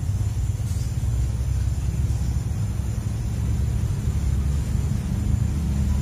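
Steady low rumble with a faint, thin, steady high tone above it.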